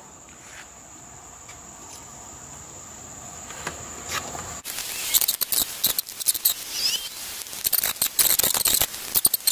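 Hands working the corrugated plastic wire loom and wire ends of a mass airflow sensor pigtail: a run of scratchy rustles and clicks that starts about halfway in. Before that there is only a steady high insect buzz.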